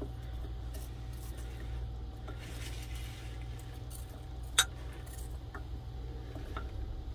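A metal fork clinks once against a slow cooker's crock about halfway through, followed by a couple of faint ticks, over a steady low hum.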